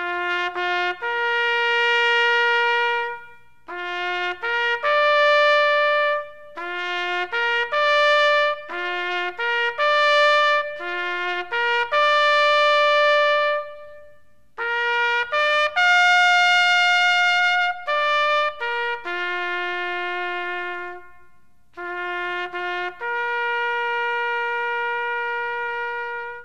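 Solo trumpet playing short phrases of separate notes, each phrase ending on a longer held note, with brief pauses between phrases.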